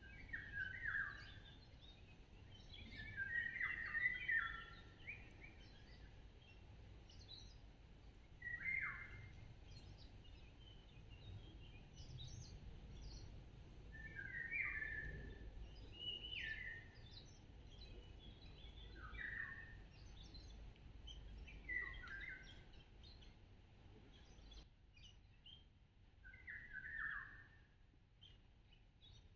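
A songbird singing short chirped phrases that fall in pitch, repeated every two to three seconds, over a faint low background rumble.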